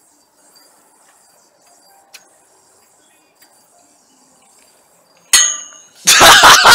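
A metal yoyo gives one sharp clang with a short ringing tail about five seconds in, as the trick goes wrong and a yoyo falls. Loud irregular clattering bursts follow near the end. Before that there is only a faint steady hiss.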